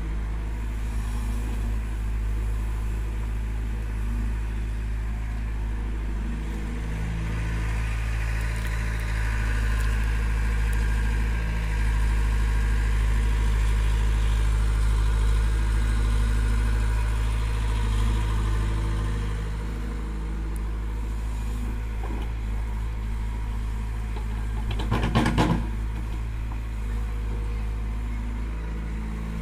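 A diesel tractor engine idling steadily alongside a running hydraulic excavator. The machinery grows louder for several seconds in the middle, with a higher whine over the engine drone, and a short clatter of knocks comes near the end.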